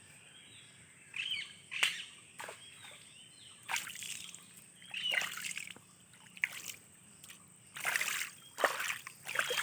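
Irregular short splashes and sloshes of water, with birds chirping.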